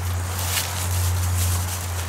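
Hands digging and rustling through damp soil and potato foliage in a garden container, soft irregular scraping and crumbling with a stronger scrape about half a second in, over a steady low hum.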